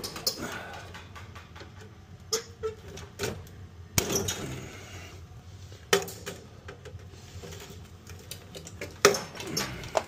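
Irregular sharp clicks and clacks of pliers and metal wire connectors being worked against the furnace's sheet-metal cabinet, the loudest about four seconds in and again near the end, over a steady low hum.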